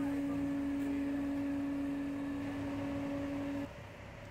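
A steady, even tone over a low background rumble, cutting off suddenly near the end.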